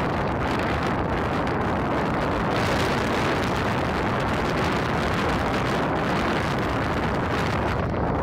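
Wind buffeting the microphone: a steady low rumble with a hiss over it, unbroken throughout.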